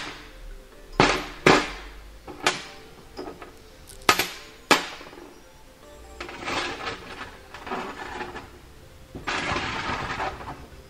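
Small steel and stainless parts (a bolt, nut and washers) dropping and clinking on a steel work table: about six sharp, ringing clicks in the first five seconds, the first the loudest, over background music.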